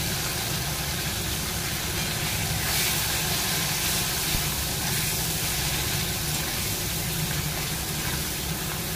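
Potatoes and freshly added chopped tomato sizzling in hot oil in an aluminium kadai, stirred with a metal spatula, over a steady low hum. The sizzle swells briefly about three seconds in.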